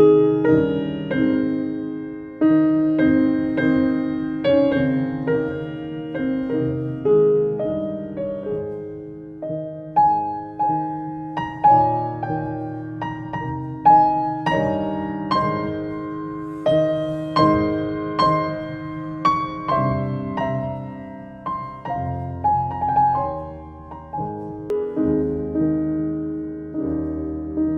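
Grand piano played solo: a classical piece, a melody moving above held chords, each note struck and left ringing.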